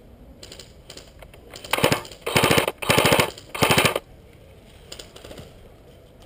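G&G FN2000 airsoft electric gun firing full-auto: four short bursts in quick succession starting about two seconds in, each a fast rattle of shots.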